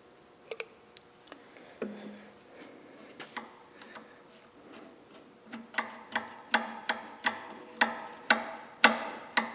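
A pump oil can clicking briefly, then a run of sharp metallic clicks about twice a second, each with a short ring, as the freshly oiled red hand lever on an Ammco 4000 brake lathe's gearbox is worked by hand. Crickets chirp steadily behind.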